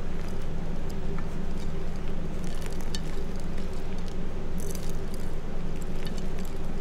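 Hands crushing and crumbling reformed gym chalk chunks and powder: a scatter of small dry crunches and crackles, thickest around the middle, over a steady low hum of background noise.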